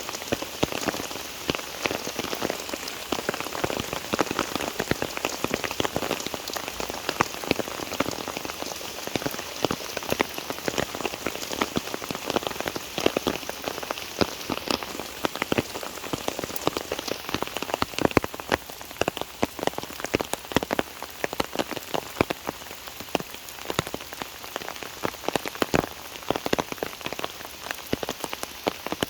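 Steady rain falling, with many separate drops tapping sharply close by over an even hiss.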